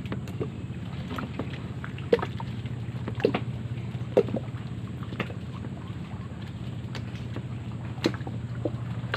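Occasional sharp knocks on a wooden fishing boat, about four of them, each with a short ring, over a steady low hum.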